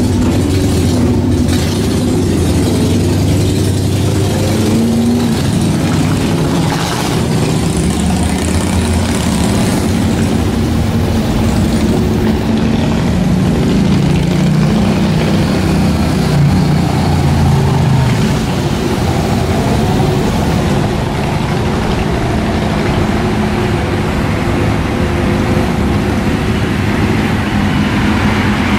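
Motorcycle engines running as bikes ride past in street traffic, their pitch rising and falling as they pull away and slow.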